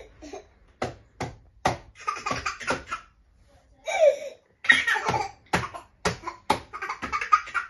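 A toddler and a baby laughing and squealing, with short bursts of giggles, broken by repeated sharp slaps of hands patting a baby seat's plastic tray.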